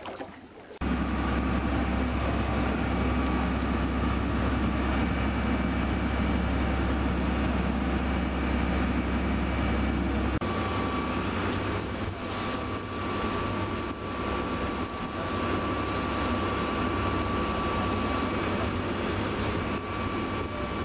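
Boat motor running steadily under way, a low hum with a steady whine over it. It comes in suddenly just under a second in, and its low part changes about ten seconds in.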